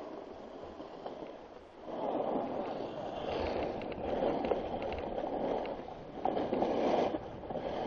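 Scraping hiss of a board or skis sliding over groomed, hard-packed snow, mixed with wind rush on the microphone. It gets louder and rougher about two seconds in as the rider picks up speed, with a few louder swells near the end.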